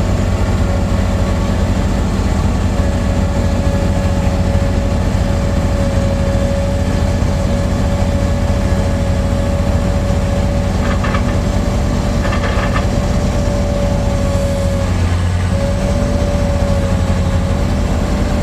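Heavy farm machinery engine running steadily at constant speed, with a steady whine over the low engine drone that briefly dips about fifteen seconds in.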